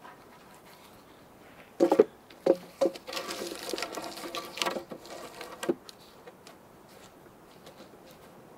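Wooden logs knocking together: a cluster of sharp, hollow knocks about two seconds in, then a few seconds of wood scraping and rubbing on wood, ending in one more knock a little past halfway, as a log is worked into place in a stacked log wall.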